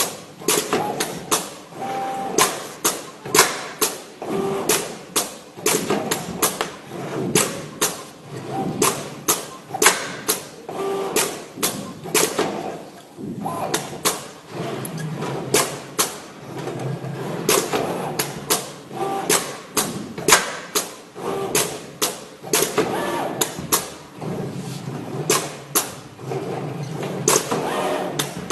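Flatbed cutting plotter milling a frame, giving a run of sharp knocks, irregular at roughly one to three a second, over a continuous working noise.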